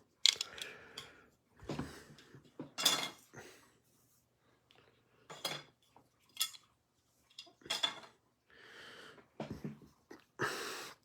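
Trading cards in hard plastic holders and cases being handled and set down on a table: scattered irregular clicks, taps and rustles with short pauses between them.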